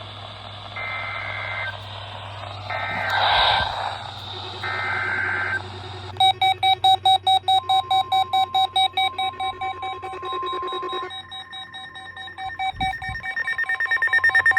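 NOAA Weather Radio weekly test: three short bursts of the SAME digital header warble, then weather radio receivers going off in rapid electronic beeps, about three to four a second, with the steady 1050 Hz warning alarm tone sounding for a few seconds in the middle. The alarm tone is a routine test of the public warning system, not a real warning.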